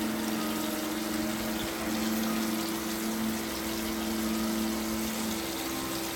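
Breaded pollock fillets deep-frying in hot canola oil in a pot: a steady sizzling hiss with fine crackles, over a steady low hum.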